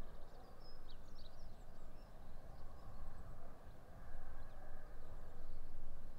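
Gusty wind heard through a microphone inside a Rode Blimp windshield with its fur cover and no foam windshield: a low rumble that swells and drops with the gusts. A few faint bird chirps come through in the first couple of seconds.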